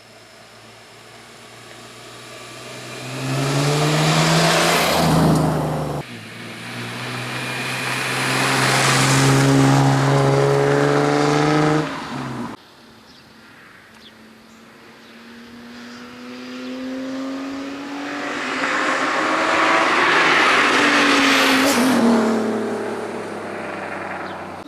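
BMW E46 M3's inline-six exhaust, through aftermarket headers and a gutted stock muffler, in three hard full-throttle pulls, each climbing in pitch and loudness. The first two cut off sharply.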